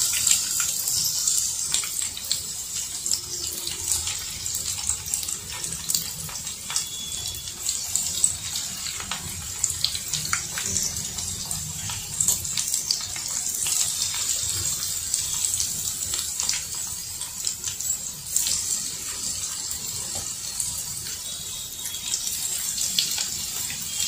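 Batter-coated chicken strips deep-frying in hot oil in a kadhai: a steady sizzling hiss dotted with constant small crackles and pops.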